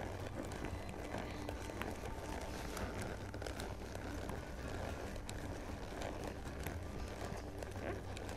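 Horse walking on soft arena sand under a western saddle: faint, scattered crackles and creaks of the tack and soft hoof falls over a low, steady rumble.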